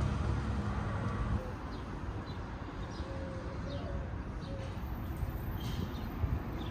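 Outdoor ambience: a low rumble that drops away about a second and a half in, then birds chirping in short high notes over steady background noise.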